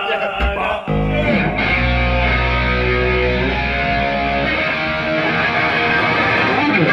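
Rock band playing live, electric guitar and bass to the fore. A heavy low chord comes in about a second in and rings out for several seconds before the notes change.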